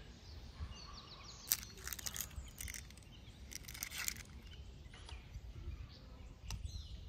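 Birds chirping in short calls over a low background rumble, with a few light clicks from handling at the table.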